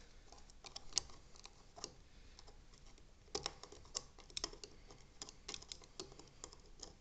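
Faint, irregular light metal clicks and ticks of a screwdriver working out the small flathead screw that locks the propeller nut on a Hydralign Junior feathering propeller hub, coming thicker in the second half.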